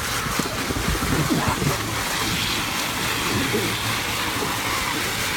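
Lawn sprinkler under a trampoline spraying water up through the wet mat with a steady hiss, while two people scuffle on the mat, bodies bumping and sliding mostly in the first couple of seconds.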